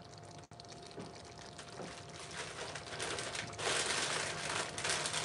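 Chili of ground beef, beans and tomatoes with a little butter simmering in a skillet on a gas burner: a soft bubbling sizzle that grows louder about halfway through.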